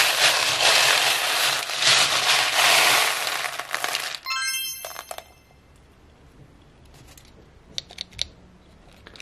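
Hands plunging into and stirring a tub of small plastic beads: a dense, loud rattling clatter for about four seconds. It stops suddenly and a short, bright chime sounds, followed by a few faint clicks of beads.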